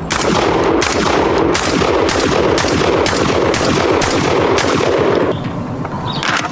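Drum-fed AR-style semi-automatic shotgun fired in rapid succession, about three shots a second, stopping about five seconds in.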